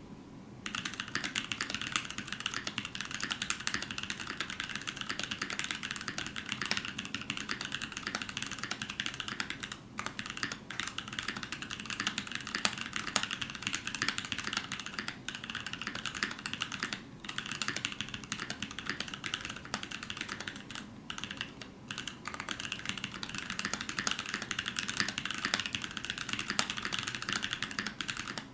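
Fast, continuous typing on a TFv2 mechanical keyboard with Blueberries switches lubed with 205g0 and fitted with 67g springs: rapid key clacks that start about half a second in, broken by a few short pauses.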